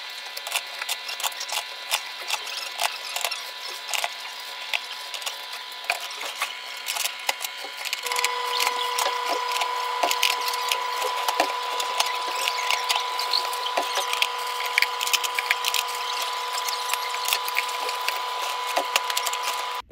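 Plastic drink bottles and cans being loaded by hand into a vending machine's spiral coil shelves: quick, irregular clicking and clattering of plastic and metal against the wire spirals. A steady hum underneath gets louder and gains a higher tone about eight seconds in.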